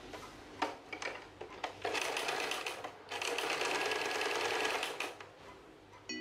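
Usha Janome Prima Stitch electric sewing machine stitching cloth: a few light clicks, then the machine runs at speed for about a second, pauses briefly, and runs again for about two seconds before stopping.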